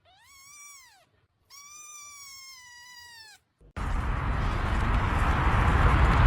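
A cat meowing twice, a short call and then a longer one. A loud, steady rushing noise then starts abruptly and fills the rest.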